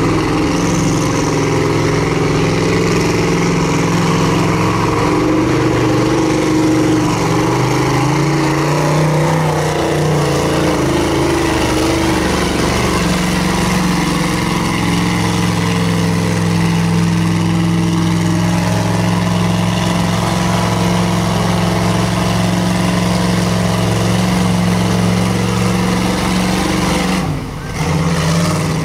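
Mega truck's engine running hard at high revs as the truck churns through a mud pit on tractor tires. The revs sag and climb again about a third of the way in, hold steady for a long stretch, then drop off briefly near the end.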